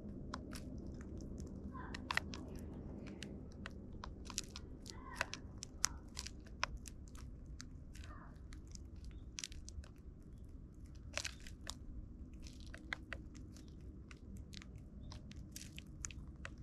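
Eurasian tree sparrows pecking seed from a plastic feeding tray close to the microphone: an irregular run of sharp little clicks and crunches as their beaks strike the tray and crack the seeds.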